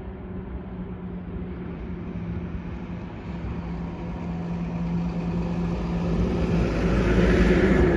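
Dash 8 Q400's twin Pratt & Whitney PW150A turboprops and propellers making a steady droning hum. It grows steadily louder and brighter as the aircraft draws nearer, loudest near the end.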